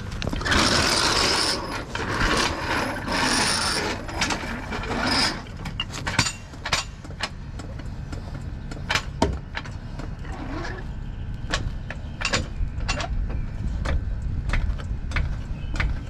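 Steel floor jack scraping as it is rolled over concrete for the first few seconds, then its handle pumped, with a sharp metallic click on each stroke, about one or two a second.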